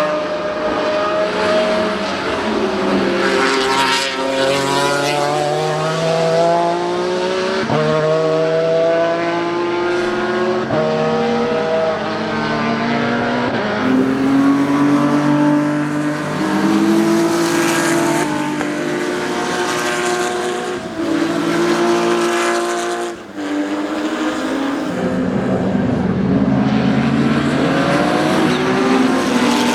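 Historic racing car engines at full throttle, each climbing in pitch and dropping sharply at a gearshift, again and again, with several cars overlapping as they pass. A brief lull about 23 s in before another car revs up.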